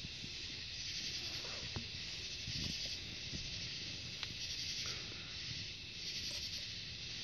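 Night insect chorus: a steady high hiss with a brighter pulse about every second and a half, with faint rustling and a couple of light clicks.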